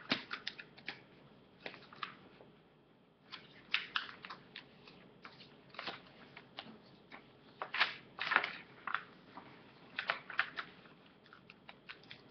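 A sheet of paper being folded and creased by hand into a paper airplane: irregular crinkles and rustles, with a busier run of crackles about eight and ten seconds in.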